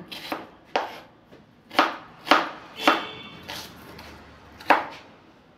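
Kitchen knife chopping an onion on a wooden cutting board: about six sharp, irregularly spaced strikes of the blade on the board.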